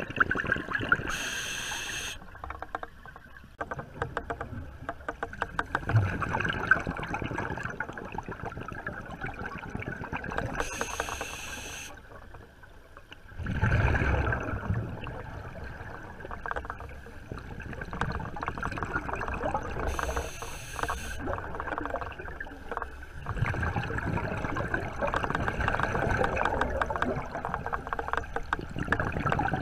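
Underwater sound picked up by a camera: crackling, bubbling water noise, with a short hiss three times about nine seconds apart and a louder surge about 14 seconds in.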